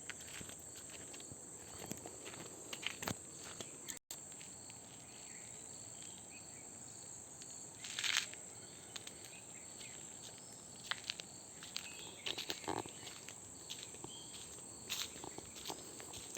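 Insects chirring in a steady high-pitched drone, with irregular footsteps and scuffs over it, the loudest about eight seconds in.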